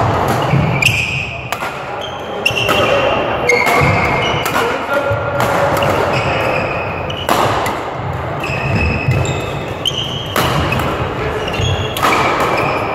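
Badminton doubles rally: rackets repeatedly striking the shuttlecock with sharp cracks, mixed with short squeaks of court shoes and the thud of players' feet on the sports-hall floor.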